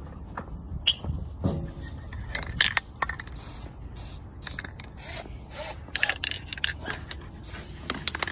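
Irregular scraping, crunching and clicking close to the microphone: shoes scuffing on gritty concrete and the phone being handled near the ground.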